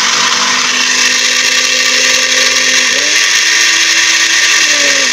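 Geepas electric juice blender's motor running loudly on a test run after a blown fuse was replaced, showing the repair has worked. Its pitch steps up about three seconds in and falls back near the end.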